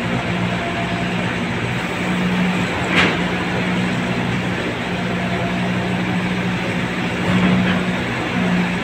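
An engine running steadily with a low, even drone, and a single sharp click about three seconds in.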